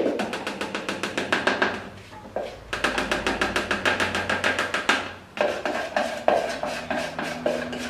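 Rapid tapping on a plastic cup, about ten taps a second in three runs with short pauses, knocking chocolate powder out of it into a stand mixer bowl.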